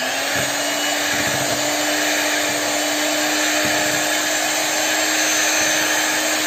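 Electric hand mixer running steadily with its beaters in thick cake batter. The motor speeds up with a brief rising whine at the start, then holds one steady pitch.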